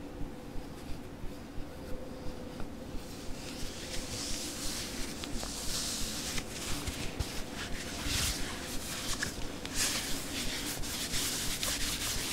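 Satin-gloved fingertips tapping on a camera lens, light taps about three a second. About three seconds in, a soft rubbing swish of satin over the lens joins the tapping and grows denser.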